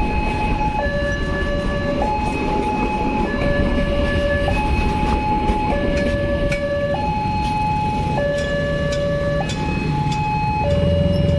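Railroad level-crossing warning alarm sounding its two-tone signal, a lower and a higher tone taking turns about every second and a quarter. Underneath, the last cars of a passenger train rumble past at the start, and engine noise rises near the end.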